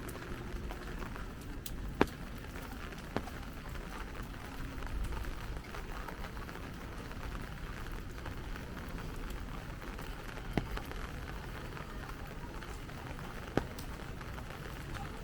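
Light rain falling on an umbrella overhead, a steady patter, with a few sharp taps.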